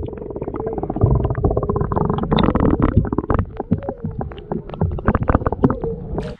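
Underwater sound from a camera held under the pond's surface: a loud rumble with many quick clicks and bubbling, over a faint steady hum. It cuts off suddenly at the end.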